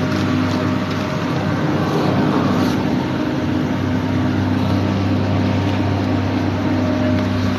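Chairlift drive machinery running with a steady low mechanical hum under an even rushing noise.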